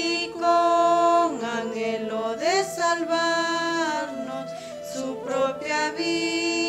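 Women singing a hymn together from a hymnal, in slow, long held notes with slides between them.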